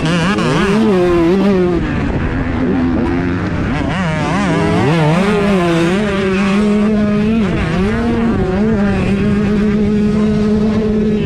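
125cc two-stroke motocross bikes racing, their engines revving up and down in pitch as the riders work the throttle and shift; near the end one engine holds an even pitch.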